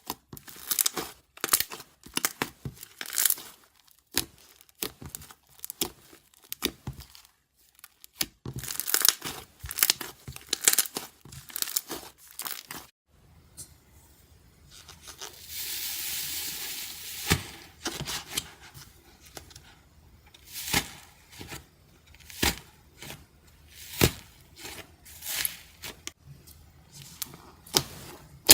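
Iceberg slime's hardened top crust crackling and crunching as it is pressed and squeezed, in irregular crisp bursts, with a steady hiss for a couple of seconds midway.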